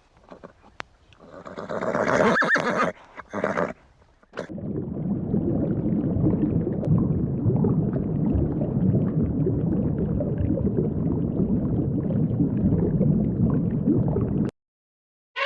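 Animal sounds: a rough horse-like neigh from about one to four seconds in, then a long, steady, low rough sound that cuts off suddenly near the end.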